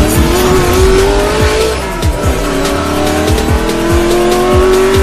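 Racing-car engine sound effect revving up in a rising pitch, dropping about two seconds in and climbing again, over intro music with a steady bass-drum beat about twice a second.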